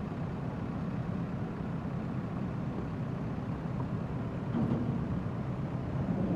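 JCB backhoe loader's diesel engine running under load as its front bucket pushes a heavy tanker truck, a steady low rumble that picks up a little about four and a half seconds in.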